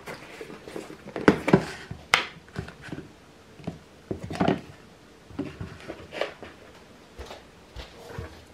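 Kitchen prep handling: a plastic food-storage container handled and put aside, then a tomato set down and cut on a wooden cutting board, heard as a scattering of light knocks and taps.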